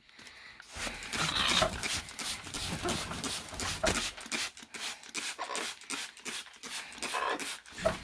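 Plastic trigger spray bottle squirted again and again, a quick irregular run of short hissing sprays starting about a second in, with the rustle of a blue-and-gold macaw flapping its wings under the spray.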